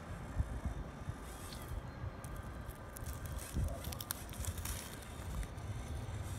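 1:18 scale Eazy RC Patriot LC80 rock crawler creeping over sandstone. Its small electric motor and gears give a faint steady whine, with scattered clicks and crackles of tyres and grit on the rock, thickest in the middle.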